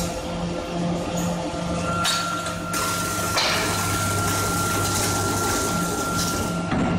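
Induction heating line for steel round bar running: a steady electrical hum with a high, even whine over it. A rushing hiss comes in about two seconds in, grows stronger a little later and drops away shortly before the end.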